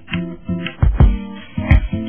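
Background music: a song with guitar, a bass line and heavy low drum hits, two of them in this stretch.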